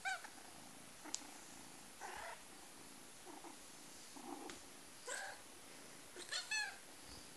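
Black kitten making a series of short, high-pitched mews, about six of them a second or so apart, while being petted.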